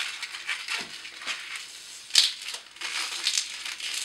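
Latex 160 modelling balloon squeaking and rubbing under the fingers as a pinch twist is twisted into its end, in irregular crackly squeaks with one sharp, louder squeak about two seconds in.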